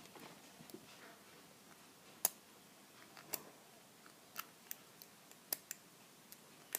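Sparse, sharp metallic clicks of a hook pick working the pins inside an all-brass round padlock under light tension, about seven or eight clicks spread irregularly.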